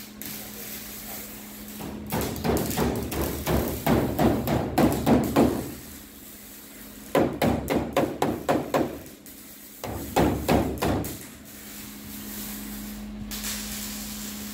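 Hammer striking the sheet-steel roof of a 1968 Chevrolet Impala, bending down the flange around a freshly cut moonroof opening. It comes as three runs of quick blows: the longest starts about two seconds in, then shorter runs about seven and ten seconds in.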